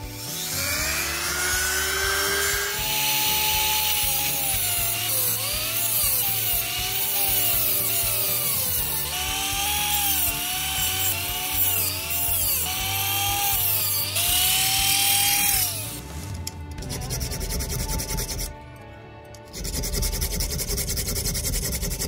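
A hand-held rotary tool spins up with a rising whine, then cuts a small steel blade with an abrasive cutoff disc: a dense grinding hiss, with the motor's pitch dipping and recovering as the disc bites. It winds down about 16 seconds in. Near the end come scraping strokes of a hand file on the steel.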